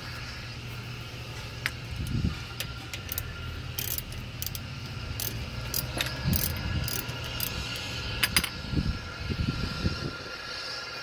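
Socket ratchet loosening a brake caliper bolt: scattered metallic clicks and clinks over a steady low hum.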